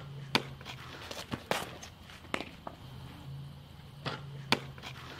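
Softballs popping into a catcher's mitt: sharp single pops, the loudest about half a second in and again near the end, with fainter clicks between and a low hum underneath.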